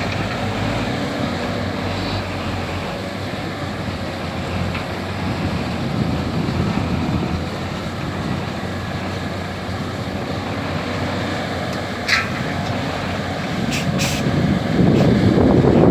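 Caterpillar 320D excavator's diesel engine running steadily under work, with a few sharp knocks about twelve and fourteen seconds in. It grows louder near the end.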